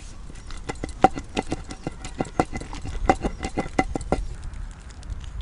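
A long wooden pestle pounding in a stone mortar (rolu), crushing coriander into a coarse bottle gourd chutney. It makes a quick, even run of dull strikes, several a second, and stops about four seconds in.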